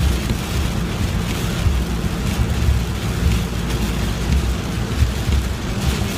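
Steady noise of heavy rain on a moving car and of its tyres on the wet road, heard from inside the cabin.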